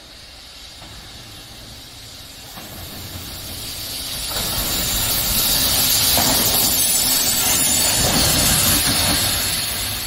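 EF65 electric locomotive passing close by: rumbling wheel and rail noise with a hissing whir, swelling from about two seconds in, loudest in the middle, then easing off near the end.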